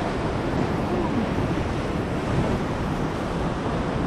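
Wind buffeting the microphone over the steady wash of ocean waves on rocks.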